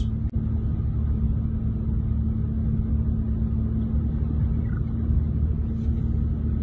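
An engine running steadily: a low rumble with a constant hum.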